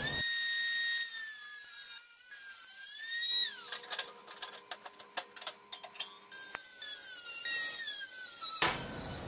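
Craftsman handheld rotary tool with a cutoff wheel cutting through a computer case's sheet-steel drive bay: a high-pitched whine that sags and wavers in pitch as the wheel bites into the metal. Midway the whine gives way to a stretch of sharp clicks before it returns.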